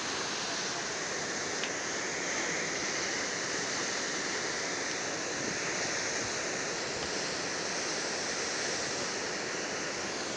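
Flash-flood torrent of muddy water rushing steadily.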